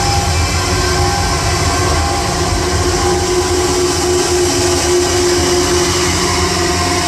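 Loram rail maintenance train running along the track, a steady loud rumble with a held tone and no breaks, heard through the windscreen of a car driving alongside it.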